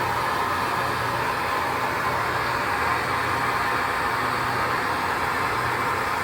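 Soldering torch flame hissing steadily while a water line joint is heated and soldered.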